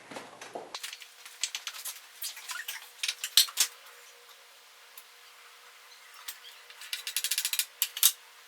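Irregular light clicks and taps, with a quick run of clicks near the end, over a faint steady hum.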